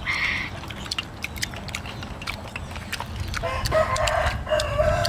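A rooster crowing once, a drawn-out crow starting about three and a half seconds in, over light clicking of snail shells being handled on a plate.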